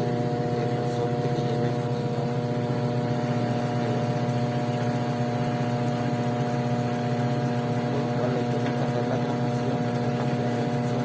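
Samsung washing machine's drive motor running with a steady hum and several steady tones, turning only the pulsator (agitator plate) while the basket fails to spin.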